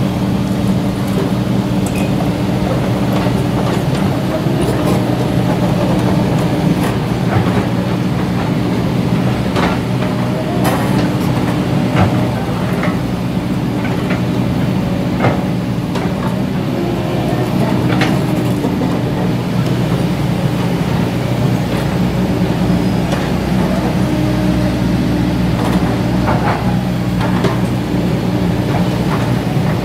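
Kobelco SK200 hydraulic excavator's diesel engine running steadily while it digs, with a few sharp clanks from the bucket and arm scattered through.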